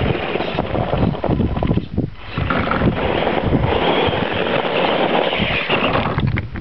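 Radio-controlled 1/8-scale rock crawler driving over rocks, its drivetrain running while tyres and chassis scrape and knock on the stone, with wind noise on the microphone.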